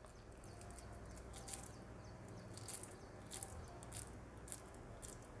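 Hand scooping and pressing moist coconut laddu mixture in a steel plate: faint, irregular soft crackles and squishes as the fingers work the coconut.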